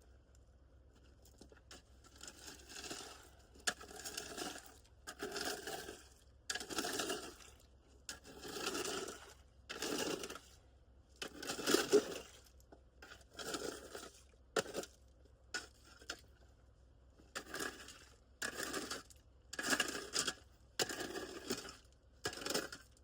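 Rake dragging through gravel and small rocks in repeated short strokes, about one a second, each stroke a rough crunching scrape with the odd sharp click of stone on stone.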